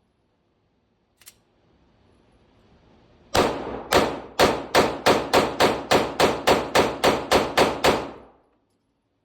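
Glock 26 9 mm pistol fired in a rapid string of about sixteen shots, three to four a second, each with a short echoing tail, after a single faint click.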